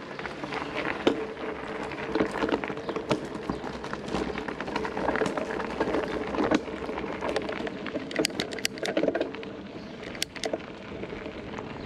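Popcorn popping in a pot: irregular sharp pops over a continuous hiss, with a quick cluster of pops about eight seconds in.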